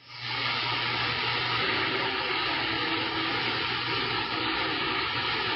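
CB radio receiver hiss: steady static from the radio's speaker with the channel open between transmissions, with faint thin tones from weak signals underneath.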